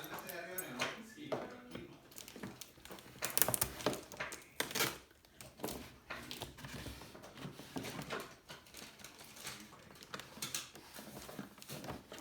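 Toy packaging being opened by hand: rustling of plastic and cardboard with scattered clicks and knocks.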